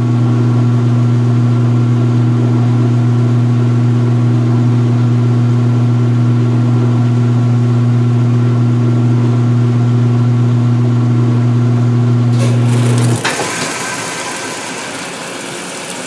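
2016 Speed Queen top-load washer spinning with a steady low motor hum. A little past twelve seconds water starts rushing into the tub, and the hum cuts off about a second later as the spin ends and the rinse fill begins.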